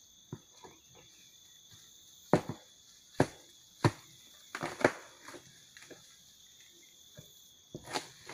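Steady high chirring of crickets or other insects, broken by a series of sharp knocks. There are about eight of them, irregularly spaced, the loudest about two seconds in and a cluster near the middle.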